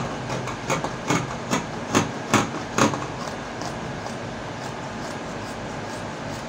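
Scissors snipping through fabric in a steady run of cuts, about two to three a second. The snips are crisp for the first three seconds, then turn fainter.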